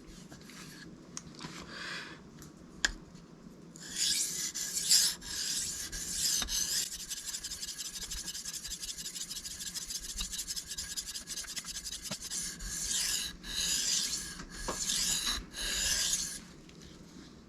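Cold Steel Mayhem blade stroked edge-first across a wetted Shapton Kuromaku 1000-grit whetstone, scraping. A couple of faint strokes come first; from about four seconds in there is a steady run of quick short strokes, then several longer separate strokes near the end.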